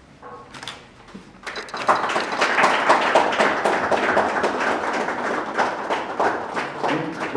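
A group of people clapping: the applause starts about a second and a half in, stays full and even, and dies away near the end.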